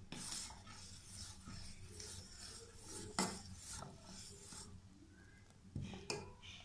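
Steel ladle stirring thick kheer in a stainless steel pan, scraping and rubbing along the bottom and sides, with a few light knocks of the ladle against the pan.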